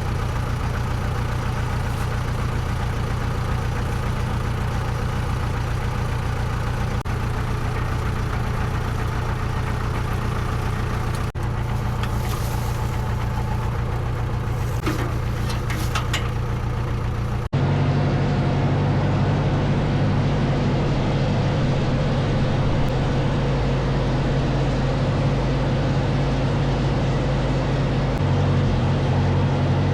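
Case 431 tractor engine running steadily. About two-thirds of the way through, the sound cuts abruptly to a louder, heavier-sounding stretch of the engine running.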